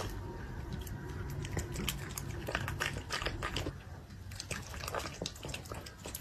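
Poodle eating, chewing and smacking its lips in an irregular run of short wet clicks.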